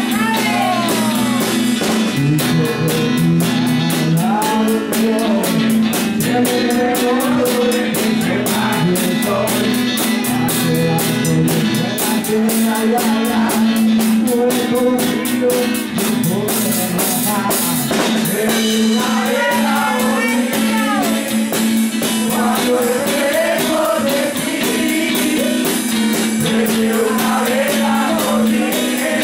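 Live acoustic rockabilly song: an acoustic guitar strummed, drumsticks on a small drum kit and cymbal keeping a fast, steady beat, and a sung vocal line that comes and goes over them.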